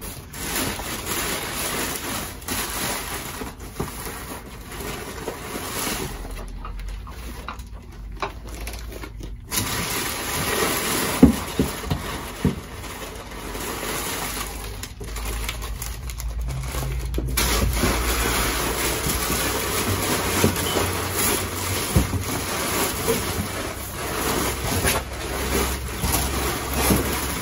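Crumpled packing paper rustling and crinkling as hands dig through a cardboard box, with a few sharp knocks, the loudest about eleven seconds in.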